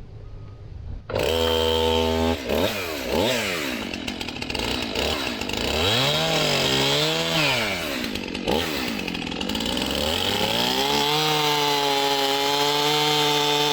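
Gas chainsaw comes in suddenly about a second in and revs up and down several times. From about eleven seconds in it is held steady at high revs as it cuts through a tree limb.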